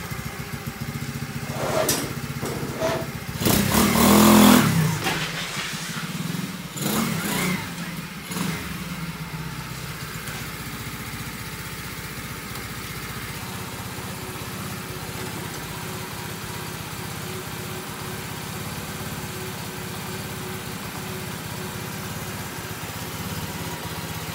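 Lifan 125cc four-stroke single-cylinder engine in a Honda Dax ST70 minibike, revved in a few short bursts in the first several seconds, the loudest about four seconds in. It then settles into a steady idle.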